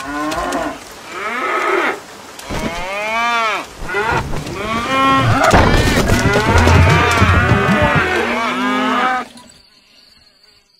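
Several cows mooing, one long call after another, each rising and falling in pitch. The calls overlap more and more, then stop near the end.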